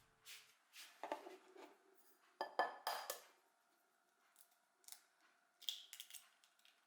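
Quiet kitchen handling sounds: a series of short clinks and taps of utensils against dishware. The loudest cluster comes about two and a half seconds in, and another group of taps comes near the end.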